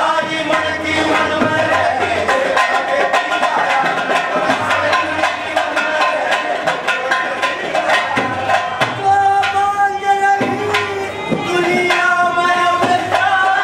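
Live Haryanvi folk music: a dholak beaten in a quick, steady rhythm, with harmonium and a singing voice.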